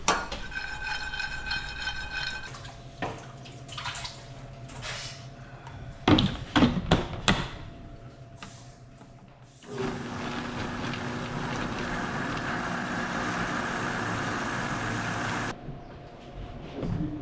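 A few loud knocks and clatter, then a food processor blending pesto, running steadily for about five seconds and cutting off suddenly.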